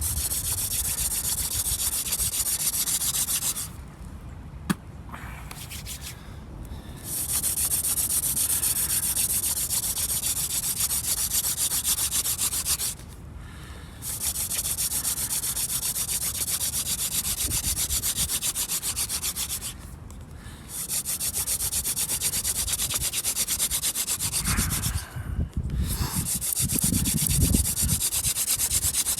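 Hand-drill friction fire-making: a wooden spindle spun back and forth between the palms, grinding into a clematis baseboard in long runs of rasping friction broken by several short pauses. The drill is building up heat in the notch toward an ember.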